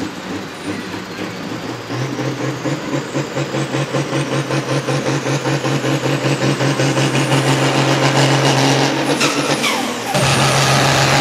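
Diesel engine of a blue pulling tractor running under heavy throttle, a steady deep note with a pulsing beat that grows louder over several seconds, dips briefly near the end and comes back at full strength.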